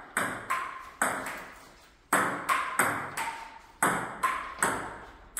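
Table tennis rally: a plastic ball struck back and forth, a quick run of about ten sharp pings off the bats and the table, coming in groups of two or three, each ringing out briefly in the room.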